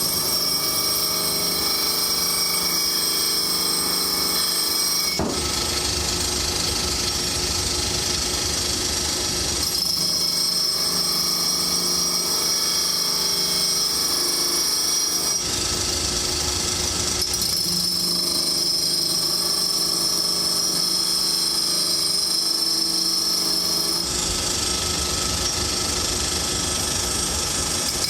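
Glass-working lathe running with a steady high-pitched whine over a low hum. Its sound shifts abruptly several times.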